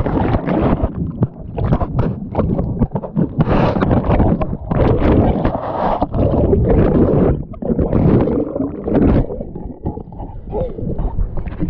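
Ocean surf washing over and around a camera held in the water, with loud, irregular surges of rushing, churning water on the microphone.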